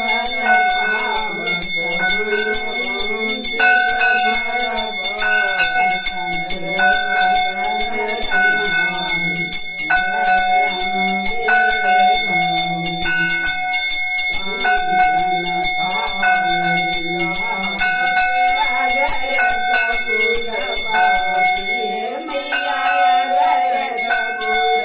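Puja hand bell rung continuously during an aarti, its steady ringing tones lasting throughout, over an aarti song with a melody that rises and falls.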